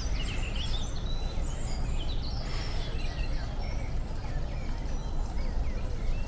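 Several wild birds chirping and singing in short, scattered phrases over a steady low background rush.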